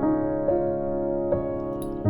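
Background music: soft piano or keyboard playing sustained chords, with new notes struck twice.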